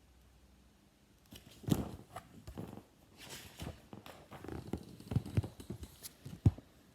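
A paper picture book being handled: irregular rustling and light knocks, as from pages being turned, ending in a sharp tap near the end.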